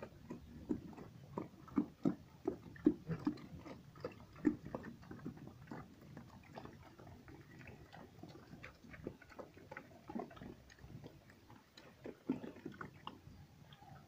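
Pigs eating from a concrete trough: irregular chewing and chomping with sharp smacks. The chomping is busiest in the first few seconds and again near the end.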